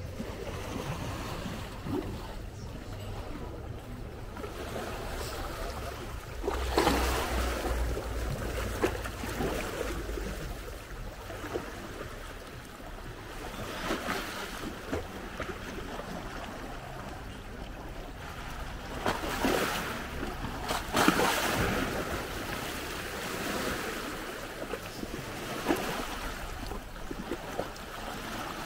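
Small sea waves washing onto a pebbly shore, the wash swelling and falling back several times, with wind buffeting the microphone now and then.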